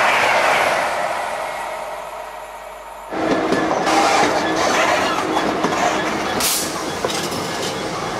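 A train running through the station on the main line, its rushing noise fading over the first few seconds. About three seconds in the sound switches abruptly to another train passing close by, a steady rumble with wheel clicks on the rails.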